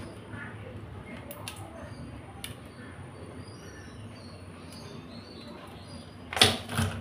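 Hands working over raw crabs in a steel sink: faint clicks and scrapes of shell pieces, then a loud, brief crackle in two quick parts near the end.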